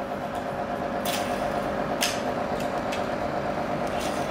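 Small motor humming steadily, with three short sharp noises about one, two and four seconds in.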